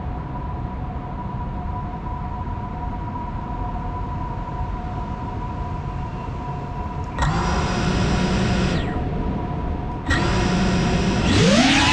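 GEPRC CineLog 35 FPV drone's motors spinning up at idle about seven seconds in, stopping after a second and a half, then starting again about ten seconds in and rising in pitch near the end as the throttle is raised for takeoff. Before that, a steady low background rumble.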